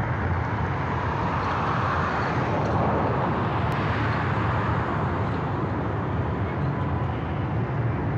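Steady road traffic noise: an even low rumble with hiss and no distinct events.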